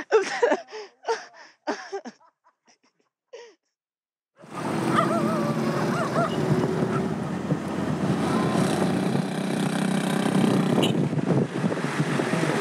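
Guitar music trailing off over the first two seconds, then a short silence. Then a car's engine and road noise start suddenly and run steadily as it drives up a narrow street, with wavering high tones above them a second or so in.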